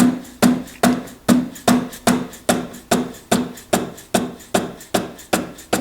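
Steady hammer blows, about two and a half a second, knocking on a stuck, very tight metal part of an old Delta lathe's tailstock after the live center was removed; each blow rings briefly.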